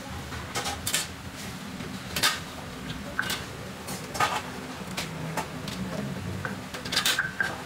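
A pestle grinding and scraping in a stone mortar (cobek), with irregular clacks of the pestle against the stone as tomato and chili are crushed into sambal.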